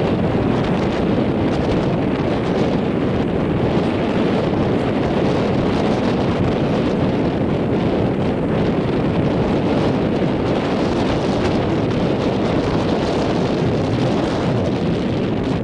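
Steady wind buffeting the microphone: a loud, even rushing noise with no breaks.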